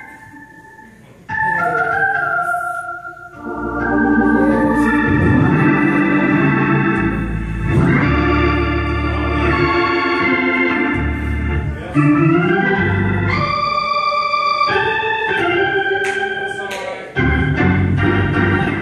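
Organ playing slow, held chords over a bass line, coming in about a second in.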